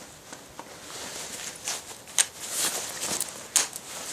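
Footsteps, a few irregular soft crunches about one or two a second.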